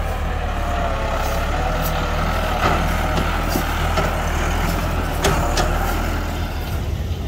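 Massey Ferguson 385 tractor's diesel engine running steadily under load as it pulls a tine cultivator through the soil, its pitch wavering a little, with a few short sharp clicks.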